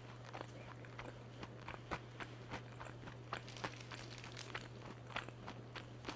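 Close-up crunching and chewing of crispy-coated fried chicken: irregular crisp crackles several times a second, over a steady low hum.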